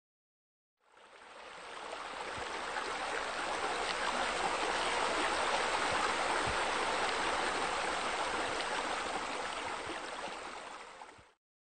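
Steady splashing of water from pool fountain jets and a bubbler. It fades in about a second in and fades out just before the end.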